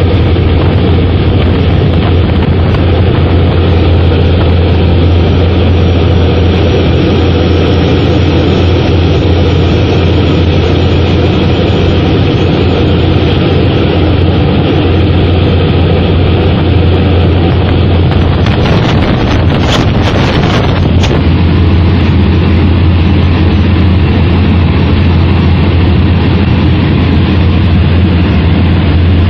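Steady, loud drone of a propeller aircraft's engine heard from inside the cabin, a deep hum under a broad rushing noise, with a short burst of hiss about two-thirds of the way through.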